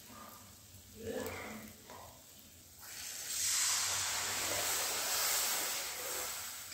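Water poured into a kadhai of hot masala paste that has been fried until the oil separates, hissing and sizzling as it hits the hot oil. The hiss starts suddenly about three seconds in and slowly eases while the paste is stirred.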